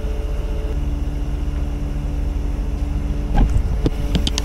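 Heavy truck's diesel engine running steadily during a winch-on load, its pitch stepping down about a second in. A few sharp metallic knocks near the end.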